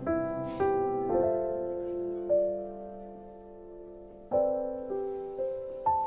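Background music: slow, gentle solo piano, single notes and chords struck and left to ring out, with a pause between about two and a half and four seconds in.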